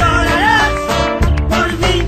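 Band music from a rumba-style Spanish song in an instrumental passage between sung lines, over a steady bass, with a melody line sliding up and down in pitch in the first second.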